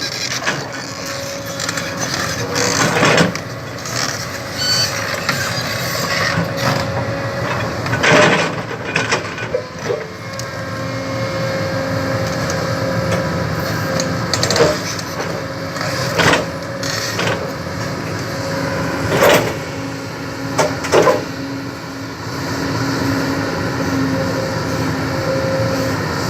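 Heavy construction machine's engine running at a steady pitch, with scattered knocks and clanks from the machine at work, the sharpest about eight and nineteen seconds in.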